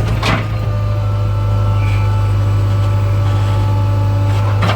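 Backhoe loader's diesel engine running steadily with a constant low hum. A brief sharp noise comes shortly after the start and another near the end.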